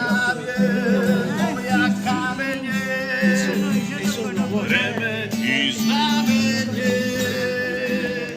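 Music: a melody with a wavering, singing voice over a steady sustained low accompaniment.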